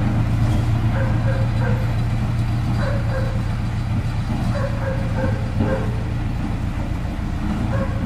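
Road roller's diesel engine running steadily as the roller crawls along, with a dog barking repeatedly in short barks over it.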